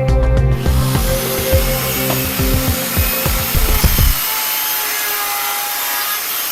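A metalworking power tool cutting: a steady noise that starts about half a second in and runs on, over background music whose beat drops out about four seconds in.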